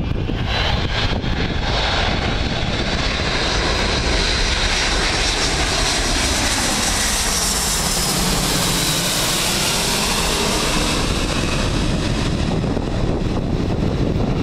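Boeing C-17A Globemaster III's four Pratt & Whitney F117 turbofan engines on landing approach, passing low overhead: a loud jet roar with a high whine that builds to its loudest as the aircraft passes over, about eight to ten seconds in, then the whine fades as it moves away.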